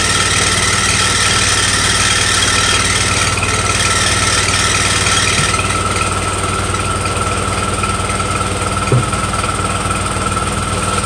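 Dredge pump rig running steadily: a low, even engine hum with a steady high whine over it and a hiss that softens a little about halfway through. A single short knock sounds near the end.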